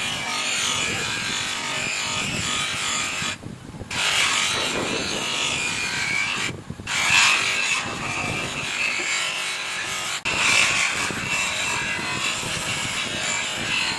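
Abrasive polishing of a metal rear drum brake cover with a power tool: a steady, rough grinding and rubbing. It stops briefly about three and a half seconds in and again just before seven seconds.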